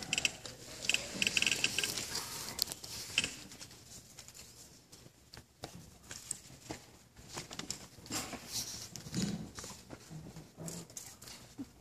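Quiet pause filled with scattered light clicks, taps and rustles of handling, with a faint low sound now and then, as microphones and their cords are set up before a performance.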